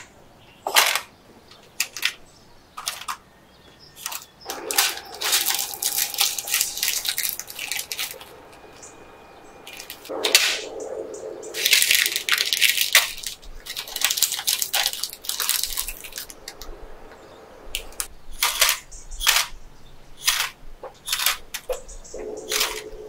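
Packaging being handled: crinkling plastic wrappers in several long stretches, with many sharp clicks and taps as items are set down.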